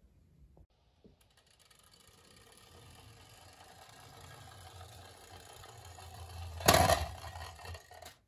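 Small toy bus rolling down a wooden plank, its little wheels making a low rumble that grows louder as it speeds up. A sharp knock comes near the end, and the rolling stops soon after.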